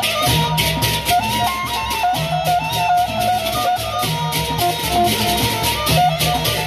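Sasak gendang beleq ensemble playing. Two large barrel drums beat a repeating low pattern under rapid, continuous clashing of hand cymbals (ceng-ceng), with a high, bending melody line held above.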